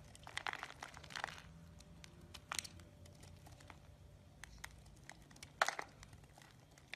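Utility-knife blade cutting into a dry, crumbly bar of soap: short crisp crunching and crackling bursts as pieces break away, the loudest near the end.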